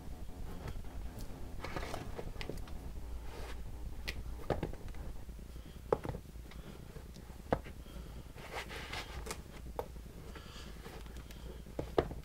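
Sneakers being put on by hand: rustling as each shoe is handled and pulled over the sock, with a few sharp knocks as the shoes are set down on the concrete floor. A low steady hum runs underneath.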